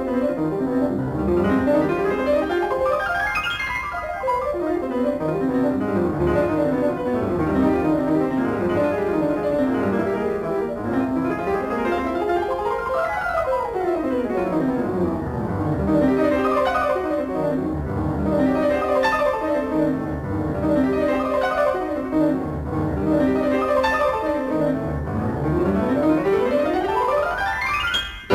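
Two pianos racing through fast scales that sweep up and down the keyboard, with a long rising run near the end.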